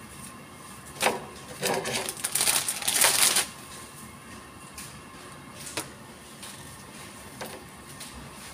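Light knocks and clatters from flatbreads being handled on a gas-range burner grate, with a brief dry rustle of the bread around two to three seconds in.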